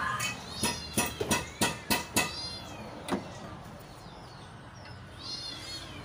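A quick run of sharp clicks and knocks, about three a second, then one more a second later. Short, high, arching animal calls come in bursts between them and again about five seconds in.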